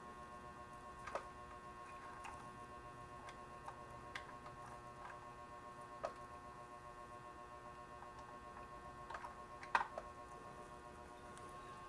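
Faint room tone with a steady electrical hum and scattered small clicks and knocks, the loudest about ten seconds in.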